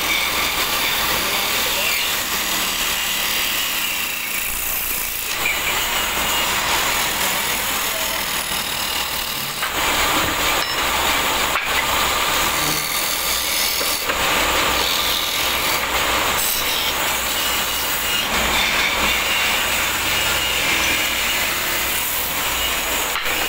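A wooden disc turning on a wood lathe while a hand chisel scrapes and shaves it into a chakla rolling board: a continuous rasping hiss of cutting wood that swells and eases, over a low machine hum.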